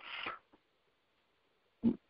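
A pause in a man's spoken monologue: a short, soft breathy sound at the start, then silence until his speech resumes right at the end.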